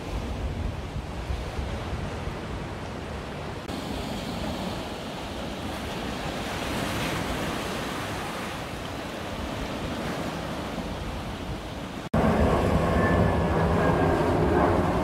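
Wind buffeting the microphone, then sea waves breaking and washing over the rocks. About twelve seconds in there is a sudden switch to a louder jet airliner passing overhead, its engines a steady tone of several pitches over a rushing noise.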